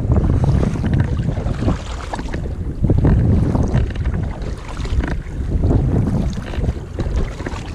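Wind buffeting an action-camera microphone, with water slapping and splashing against a kayak's hull and paddle strokes in choppy water.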